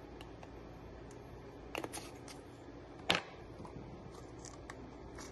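Kitchen items being handled on a countertop: a few light clicks and taps, with one sharper knock about three seconds in, over a low steady hum.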